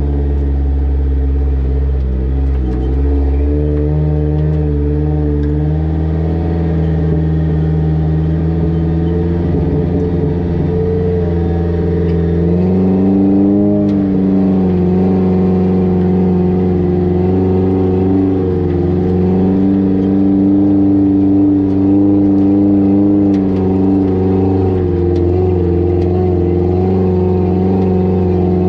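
Vehicle engine running steadily, its pitch stepping up about twelve seconds in and holding at the higher speed.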